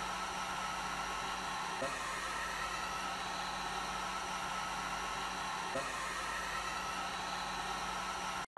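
Hot air rework gun blowing steadily onto a motherboard at 350 degrees to melt the solder on its capacitors' leads: an even rush of air with a fan hum. It stops abruptly near the end.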